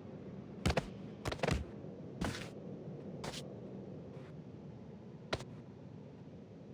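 About six short, sharp clicks and knocks, irregularly spaced and loudest in the first two seconds, over a steady low background hum.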